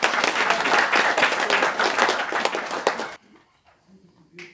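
A small audience applauding, many hands clapping together, stopping suddenly about three seconds in.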